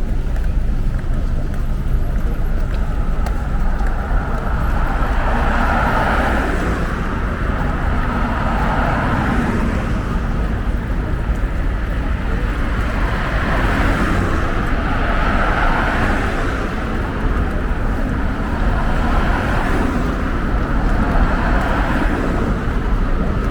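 Street ambience with road traffic passing, rising and falling every few seconds over a constant deep rumble.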